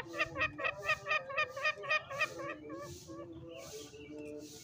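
Green junglefowl cackling: a rapid run of short clucking calls, about five a second, for the first two seconds, then a few lower, drawn-out notes that fade.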